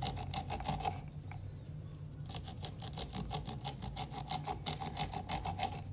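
Small serrated knife sawing kernels off a corn cob onto a wooden cutting board: quick rasping strokes, about eight a second, with a pause of about a second shortly after the start.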